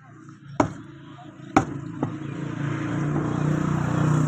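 Meat cleaver chopping beef on a wooden log block: two hard chops about a second apart, then a light tap. A motor vehicle's engine swells in level behind them and is loudest near the end, as if passing by.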